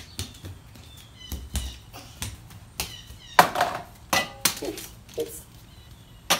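Toy monster trucks and plastic parts clicking and knocking as they are handled, in a string of short irregular taps, with a few brief squeaky voice sounds about halfway through.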